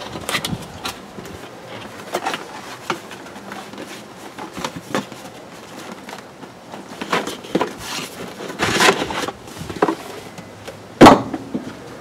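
A cardboard box being opened and a mini fridge slid out of it: flaps rustling, cardboard scraping and light handling knocks, with one louder knock near the end.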